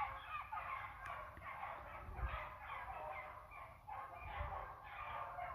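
A pack of beagles baying in full cry as they run a rabbit: many overlapping dog voices, with low rumbles swelling twice.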